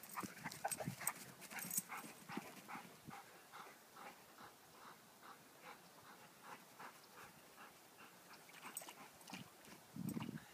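A dog panting steadily, about three breaths a second, after rough play. Near the end a louder low rumble comes in.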